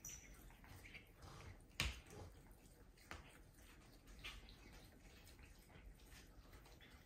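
Cats chewing and tearing at cat grass: faint, scattered small wet clicks and crunches, with one sharper click about two seconds in.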